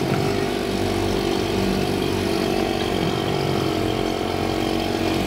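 Small outboard motor of a bumper boat running steadily, heard up close.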